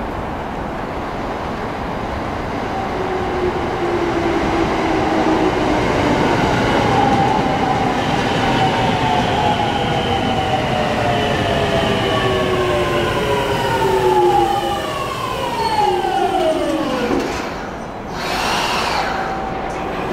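A Tokyo Waterfront Area Rapid Transit 70-000 series electric train braking into the station over rumbling wheels. Its Mitsubishi VVVF inverter whines in several tones that fall together in pitch as it slows, dying away about 17 seconds in. A brief hiss follows near the end.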